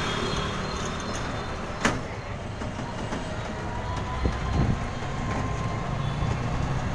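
Steady rumble and rattle of a moving vehicle heard from inside, with a sharp knock about two seconds in and a faint thin squeal in the middle.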